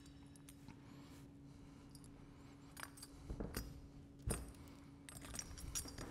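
Faint clinks and knocks of small metal parts, bolts, washers and the metal valve body, being picked up and set down by hand, with a louder knock about four seconds in. A steady low hum runs underneath.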